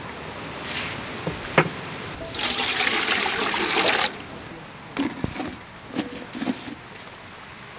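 Water rushing and splashing in a metal pot for about two seconds, then a few light clinks of aluminium cookware as the steamer pot is handled.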